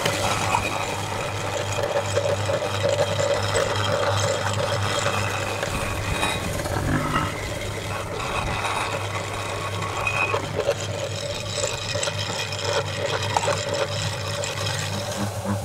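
Aluminium meat grinder running with a steady hum as it grinds Oreo cookies into crumbs, with scattered short clicks and crunches from the cookies and the metal.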